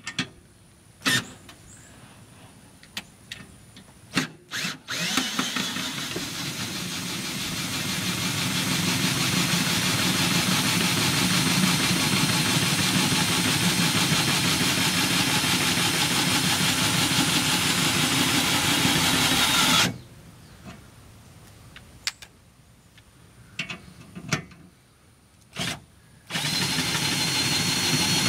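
Cordless electric drill turning the screw of a travel trailer's scissor stabilizer jack. After a few clicks and short trigger bursts, the drill runs steadily for about fifteen seconds and stops. A few knocks follow, and it starts again near the end.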